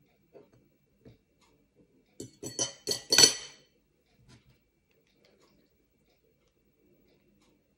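Metal spoon clinking against glass and crockery: a few faint taps, then a quick run of about five sharp clinks, the last the loudest.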